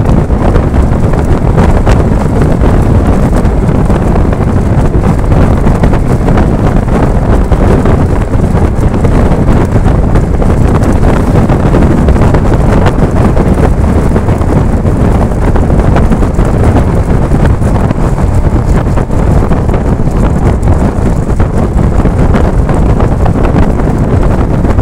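Loud, steady wind buffeting the microphone over the low rumble of a vehicle travelling at highway speed.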